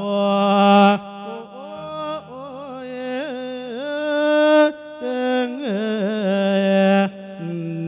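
Thai Buddhist monk singing a lae (melodic sermon chant) through a microphone: one voice with long, wavering, sliding notes, broken into phrases about a second, five seconds and seven seconds in, over a steady low drone from an electronic keyboard.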